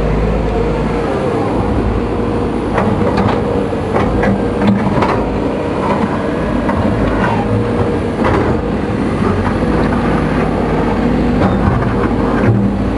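Case CX210B excavator's diesel engine and hydraulic system running steadily on test with its rebuilt main hydraulic pump, with a few sharp knocks here and there. The growl ("ngorok") the pump made before the rebuild is no longer heard.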